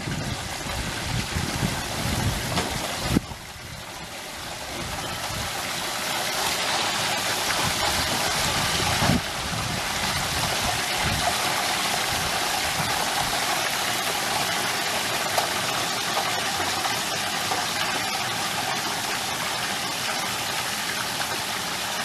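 Hot oil bubbling and sizzling hard around a whole turkey lowered into a stockpot fryer. The sizzle builds over several seconds, then holds steady.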